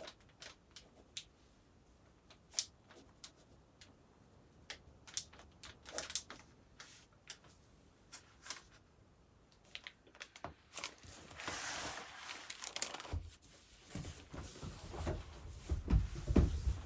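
Scattered small clicks and taps, then rustling and crinkling from about eleven seconds in, with a few low thumps near the end.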